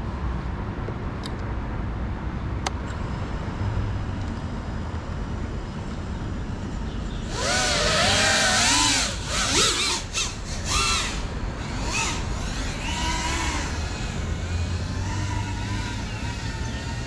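Steady outdoor background noise, then about seven seconds in the motors of a GEPRC CineLog35 3.5-inch ducted cinewhoop drone spin up: a loud whine whose pitch swoops up and down with the throttle, easing off but continuing to the end.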